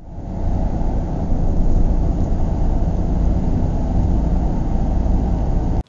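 A bus engine sound effect running steadily with a deep, even drone. It fades in at the start and cuts off abruptly near the end.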